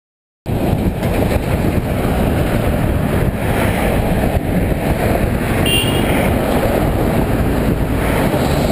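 Wind buffeting the microphone of an action camera on a moving bicycle, a steady rushing rumble mixed with road noise. It starts abruptly about half a second in.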